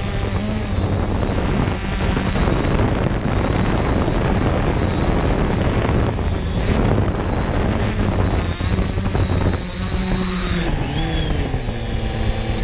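3DR Solo quadcopter's electric motors and Master Airscrew propellers whining steadily, heard up close from the drone's own airframe, over a rush of prop wash. Near the end the pitch wavers and glides as the drone descends to the ground.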